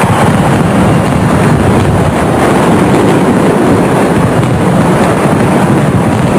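Many large Malaysian drums beaten together in a fast, dense roll, making a loud, continuous rumble of closely packed strokes.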